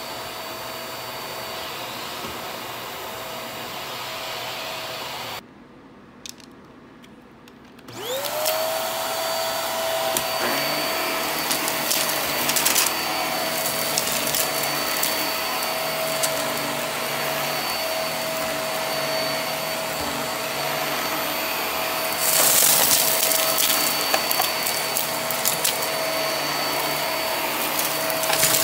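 HART vacuum cleaner running on carpet. About five seconds in its sound drops away. A little under three seconds later the motor spins back up with a rising whine and runs steady, with clicks and rattles of small bits of debris being sucked up the nozzle.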